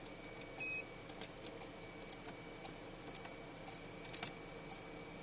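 Faint, scattered small clicks and ticks, with one slightly louder rattle just under a second in, over a quiet background carrying a faint steady high-pitched tone.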